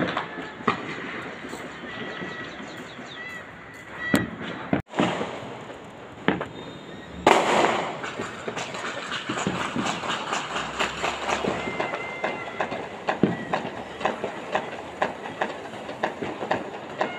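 Fireworks and firecrackers going off: scattered bangs with a loud burst about seven seconds in, then a dense run of crackling pops.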